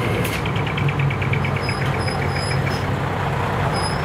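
Diesel engine of a large decorated truck running steadily at low revs, close by. A quick run of small ticks, about seven a second, sounds over the engine through the first two-thirds or so and then stops.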